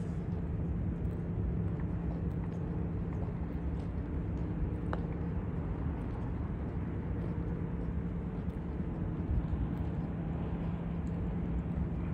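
Night-time city street ambience: a steady low hum of traffic and city machinery, with faint footsteps on the pavement. A brief high squeak sounds about five seconds in.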